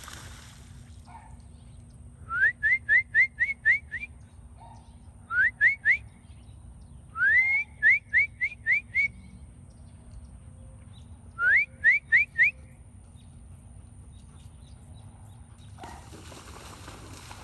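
Four quick runs of short, sharply rising whistled notes, three to seven notes per run at about four a second, each run opening with a longer upward swoop.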